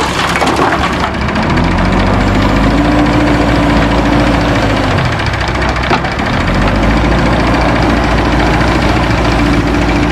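Diesel engine of heavy earthmoving equipment working, revving up, easing off and revving up again as it loads soil. A crackling clatter comes in the first second.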